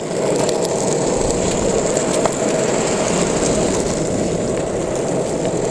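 Longboard wheels rolling over pavement, a steady low rumble.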